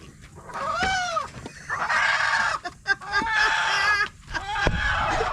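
Rooster trapped in a pickup truck's grille, calling out: a short rising-and-falling squawk, then two long harsh calls and a few short ones near the end.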